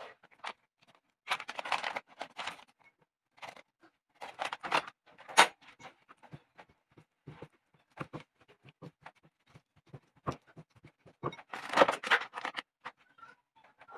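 A silicone spatula stirring and scraping a sticky cheese dough around a ceramic bowl: irregular scrapes and light knocks on the bowl, with a few denser spells of scraping.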